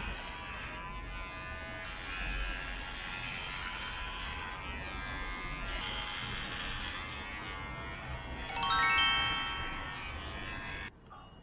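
Background music with sustained tones; about eight and a half seconds in, a bright bell-like note strikes, the loudest moment, and rings away. The music cuts off abruptly near the end.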